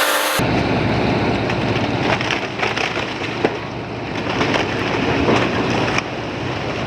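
House being torn down by heavy demolition equipment: wood cracking, splintering and crashing in a dense, continuous crackle with sharp knocks, over the steady low running of the machine's engine.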